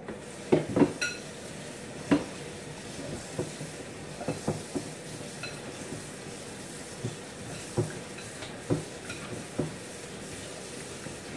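Kitchen pots and utensils clattering: about a dozen irregular knocks and clinks, a few with a short metallic ring, over a steady hiss.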